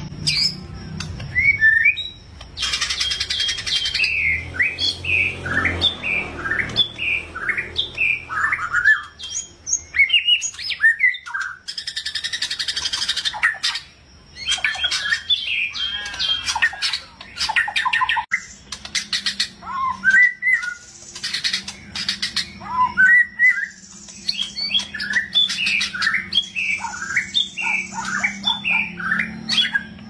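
White-rumped shama (murai batu) in full song: a fast, varied stream of whistled and fluting notes, broken several times by harsh, rasping chatters.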